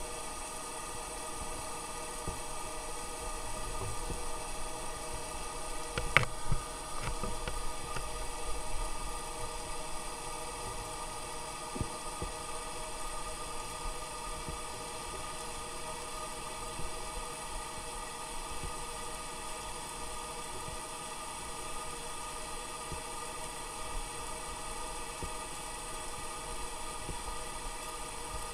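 Engines of cruise ships and their tenders heard underwater: a steady drone made of many fixed tones. A few short sharp clicks come about six seconds in and again near twelve seconds.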